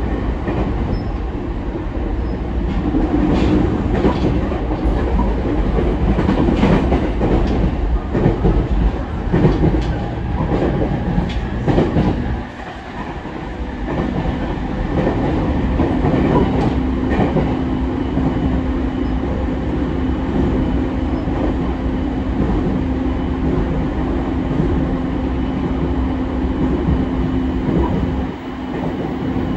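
JR East E231-0 series electric commuter train running at speed, heard from inside the passenger car: wheels and running gear on the rails, with irregular clatter in the first half. A steady hum sets in about halfway and holds.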